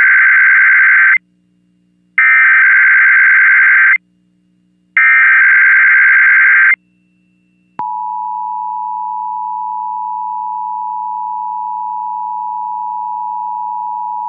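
Emergency Alert System SAME header: harsh digital data bursts, each under two seconds with about a second of silence between, the last two of the three heard in full. About eight seconds in, the steady two-tone EAS attention signal starts and holds. Together they open an EAS required monthly test.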